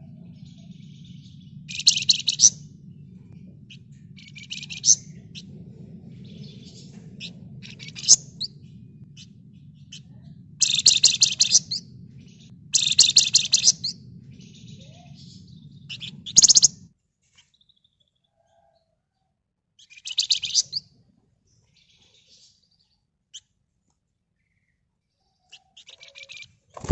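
Flamboyan songbird singing in short, rapid, high-pitched trills, about eight bursts of up to a second each with pauses between. A steady low hum runs under the first two thirds and cuts off.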